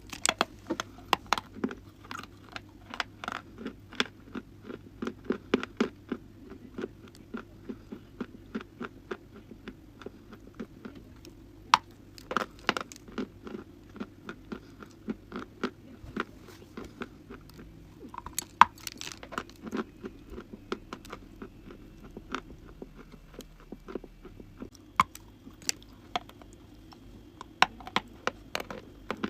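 Dry crunchy chalk being bitten and chewed close to the microphone: an irregular run of sharp crunches and cracks, several a second.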